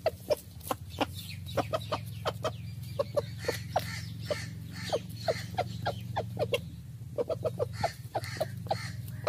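Chickens clucking: many short, sharp clucks in irregular runs, several a second, over a steady low hum.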